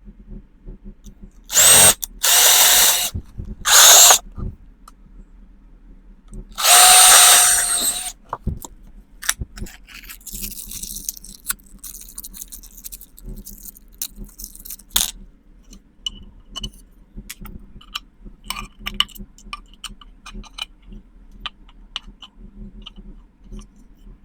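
Power drill running in four short bursts, each with a steady whine, the last and longest about seven seconds in. After that come faint scattered clicks and knocks.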